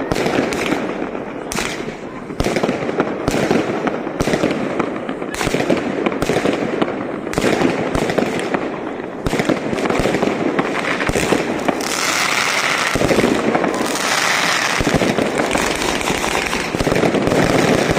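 Fireworks going off: a rapid, irregular string of loud bangs. About two-thirds of the way through, a dense crackling joins in and carries on under the bangs.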